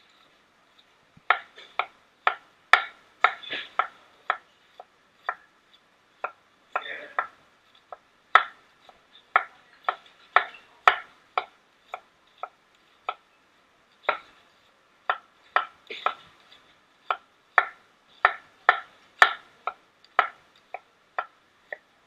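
Chef's knife slicing through an onion onto a cutting board: a run of sharp, uneven knife strokes, roughly two a second, with a few short pauses.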